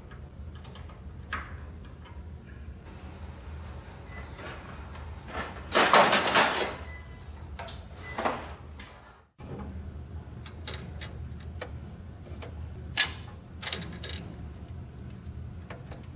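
Konica Minolta bizhub copier's paper tray sliding out on its rails, a loud plastic scraping rattle about six seconds in with a smaller one shortly after. Later come a few sharp plastic clicks and knocks as the feed roller unit inside the tray slot is handled, over a low steady hum.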